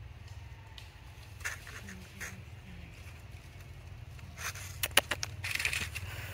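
Scraping, crackling rustles and several sharp clicks over a low steady hum, with a quick cluster of clicks about five seconds in, the loudest of them then.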